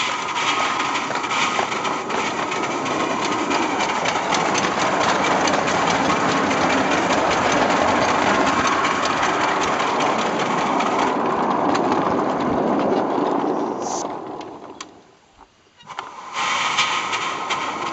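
American-outline 7¼-inch gauge live steam locomotive running, a steady noise of steam exhaust and wheels on the rails. It fades out about three-quarters of the way through, drops to near silence for a second or so, then comes back abruptly.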